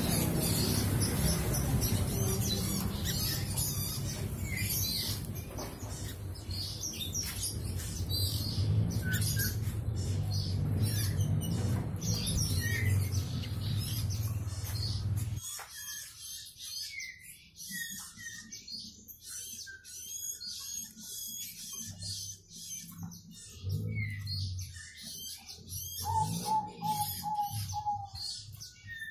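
Young fantail bird chirping in quick, short, high calls. A low steady background rumble cuts off abruptly about halfway through. Near the end comes a run of about six evenly spaced lower notes.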